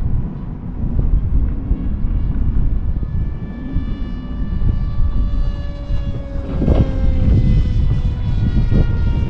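Electric motor and propeller of an RC Fleet Sonic Wing pusher flying wing whining on a high-speed pass, the pitch falling as it flies by about six to seven seconds in. Wind buffets the microphone throughout as a low rumble.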